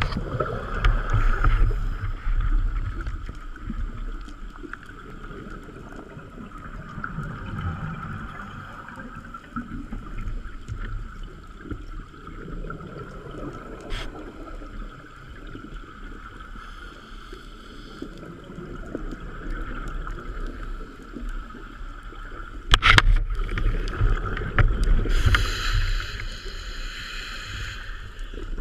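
Underwater sound of a scuba diver breathing through a regulator: muffled rushing and bubbling of exhaled bubbles under a steady hiss. It swells in surges, loudest in the first few seconds and again from a sudden loud burst late on.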